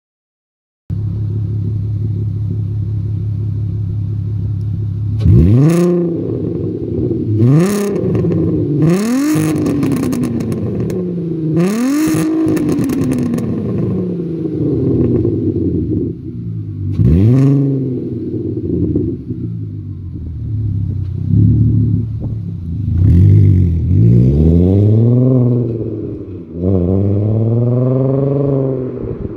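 2003 Volkswagen Jetta GLI's 2.8-litre VR6 engine through a high-flow catalytic converter and Borla S-Type muffler, really loud: it idles steadily, then is blipped in about five sharp free revs that drop straight back to idle. Near the end the car pulls away, the exhaust note rising through a few slower gear pulls.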